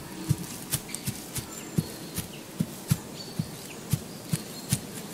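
Red deer stag's hooves stepping over the forest floor at a steady walking pace, about two to three soft thuds a second, with faint bird chirps behind.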